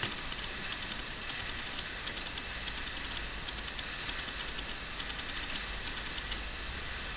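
Needle-plate screw of a Singer 99K sewing machine being turned out by hand: a faint, rapid run of fine metallic ticks.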